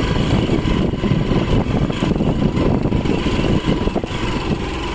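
Motorcycle engine running steadily while riding along a rough, stony dirt track.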